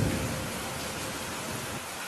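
Steady rain hissing, with the low rumble of thunder dying away in the first half second.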